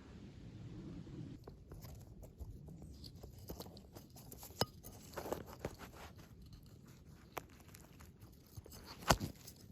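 Footsteps crunching through dry forest-floor litter of leaves and twigs, a scatter of irregular crackles with one sharper crack about nine seconds in.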